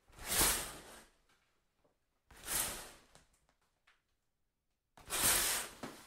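A shower curtain pulled along its rod three times, each pull a quick swish a little under a second long, about two and a half seconds apart, with faint small clicks trailing after each.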